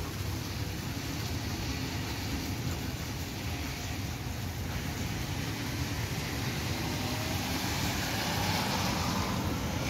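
Steady rain falling, with the hiss of a car's tyres on the wet road swelling toward the end.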